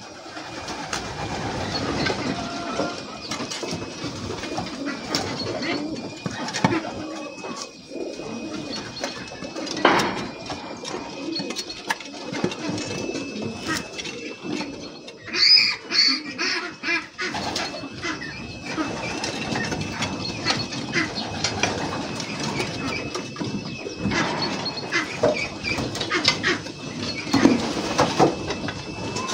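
Young racing pigeons at their loft, cooing, with wing flaps and small knocks and scrapes as they move about the roof and landing board, and a louder flurry about halfway through. A faint steady high tone sits underneath throughout.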